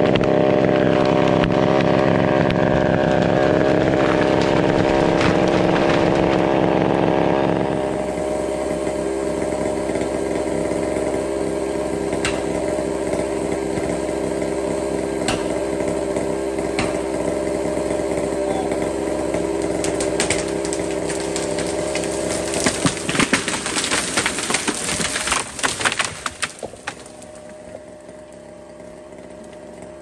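Chainsaw running at full throttle in the cut, dropping back to a lower, steady run about seven seconds in. From about 20 to 26 seconds in comes a dense run of sharp cracks and snapping, the tree's hinge wood and limbs breaking as it falls, after which it goes quieter.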